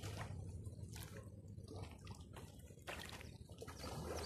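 Faint lapping and trickling of floodwater along the edge of a flooded riverbank, with a few soft, irregular splashes over a low steady rumble.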